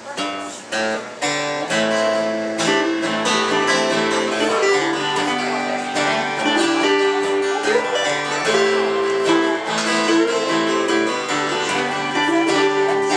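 Instrumental intro of an acoustic ballad on two strummed acoustic guitars with electric keyboard, starting at once and running in a steady rhythm with held chords and a melody line over the strumming.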